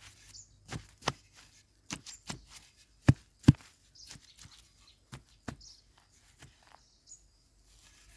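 A metal digging tool striking and chopping into lumpy clay soil while a wild yam tuber is dug out: a run of sharp, irregular thuds about one or two a second, the loudest pair a little after three seconds. Faint bird chirps come in between the strikes.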